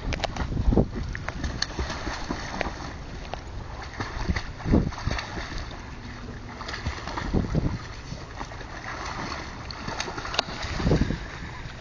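Wind buffeting the microphone in repeated gusts over a steady background of water noise.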